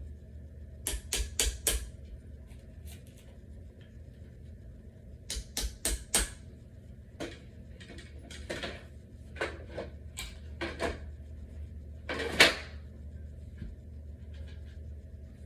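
Sharp clicks and knocks of wooden furniture panels and small metal hardware being handled and fitted during dresser assembly, coming in quick clusters of about four, then scattered single knocks with the loudest about twelve seconds in, over a steady low hum.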